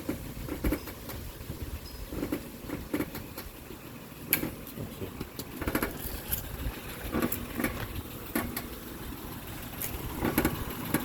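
Honda Odyssey 3.5 V6 running at idle, with irregular knocks and clunks from the front end roughly every second as steering or suspension parts are moved by hand and released, to track down the noise it makes when turning.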